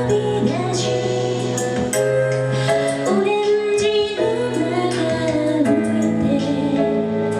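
A female voice singing a Japanese pop song live over instrumental accompaniment, with held notes, a steady bass line and crisp cymbal-like strikes.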